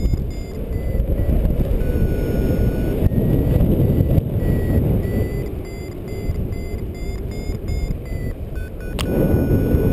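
Wind rushing over the camera microphone in paraglider flight, with a variometer beeping in short tones that step up and down in pitch, the sound a vario makes in rising air. A single sharp click about nine seconds in.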